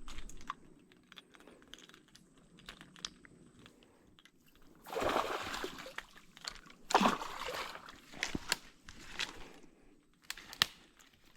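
Shallow muddy water splashing and sloshing in two bursts, about five and seven seconds in, with scattered crunches and clicks around them.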